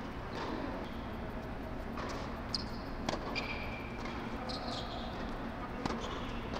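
Tennis rally: a ball struck by racquets and bouncing on a hard court, a few sharp pops a second or more apart, with short high squeaks of shoes on the court surface. A steady low hum runs underneath.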